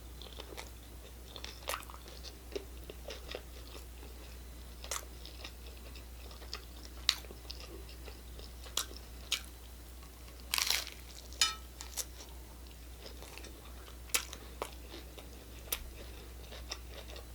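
Close-up crunching and chewing of hard-shell Taco Bell tacos: scattered sharp crunches, with a short cluster of louder ones a little past the middle.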